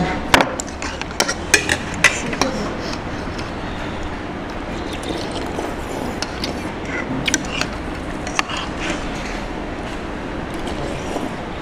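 Dishes and cutlery clinking, with several sharp clinks and knocks in the first couple of seconds and a couple more later, over a steady background hum with faint voices.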